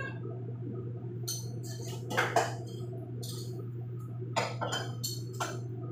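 Kitchenware clinking and knocking as dishes and utensils are handled at a counter: a series of short separate clinks, the loudest a little over two seconds in and a few more near the end, over a steady low hum.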